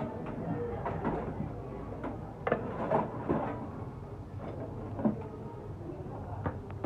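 A series of irregular knocks and clicks of parts and tools being handled during work on a scooter's final drive gearbox, the loudest clustered about two and a half to three and a half seconds in and another about five seconds in.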